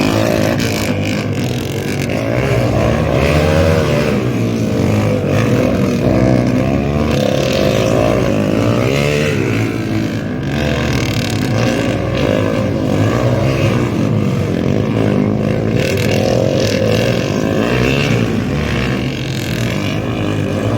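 Several motocross bikes racing, their engines revving up and down with overlapping, constantly shifting pitches.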